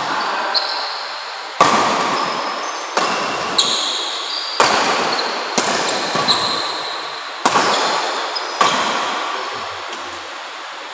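Badminton rally: rackets strike the shuttlecock about eight times, sharp smacks roughly a second apart that ring on in the hall. Short high squeaks of shoes on the court come between shots.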